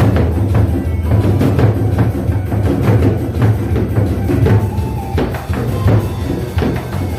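Loud music with a steady drum and percussion beat and a heavy bass line.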